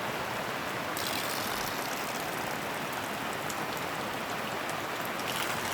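Steady rush of flowing water, a mountain valley stream running over rocks.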